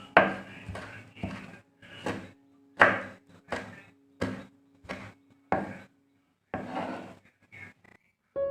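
Repeated heavy strikes on wood as food is chopped for a chicken salad, about a dozen blows at an uneven pace of roughly one every half second to second, each ringing briefly.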